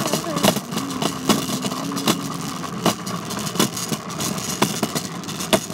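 A ride-on bike in motion: a steady hum under frequent rattling clicks and knocks.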